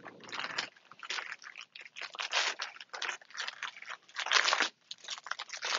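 Plastic wrapping crinkling in irregular bursts as it is handled and pulled off a new reverse osmosis membrane.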